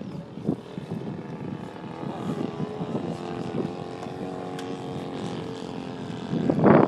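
Radio-controlled model airplane's motor and propeller droning in flight, a steady tone with overtones. A loud rushing noise takes over near the end.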